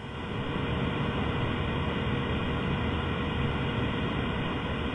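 Steady background hiss and low rumble of an open microphone, with a faint steady tone; no speech.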